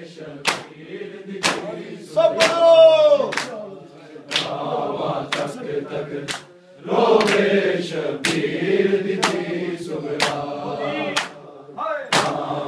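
Matam: a crowd of men chanting a Muharram lament (noha) together while beating their chests in unison. The hand-on-chest slaps come about once a second, and a loud drawn-out sung line rises over the chant a couple of seconds in.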